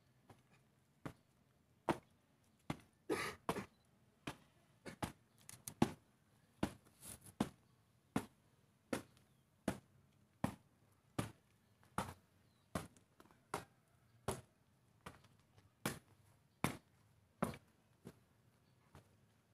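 Boots marching at an even slow cadence, a sharp step about every three-quarters of a second, with a quick flurry of steps about three seconds in.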